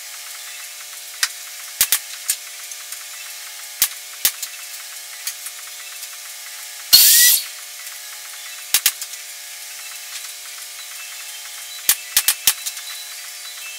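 Pneumatic pin nailer firing into wood strips on plywood: a dozen or so sharp single shots in small clusters, with a loud half-second hiss about seven seconds in.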